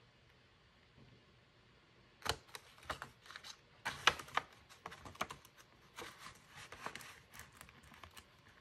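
Near silence for about two seconds, then paper banknotes being pulled from a binder's clear plastic pocket and flicked through by hand: quick, irregular crisp clicks and rustles.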